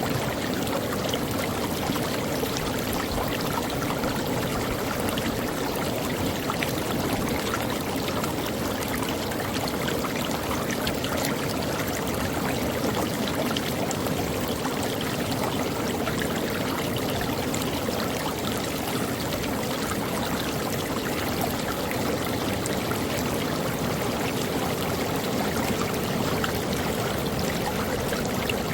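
Creek water running steadily over rocks, a continuous rushing with fine splashes and trickles.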